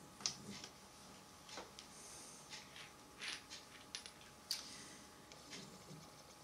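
Faint, scattered clicks and light taps of communion vessels, a silver chalice and a small glass cruet, being handled by hand on a cloth-covered table.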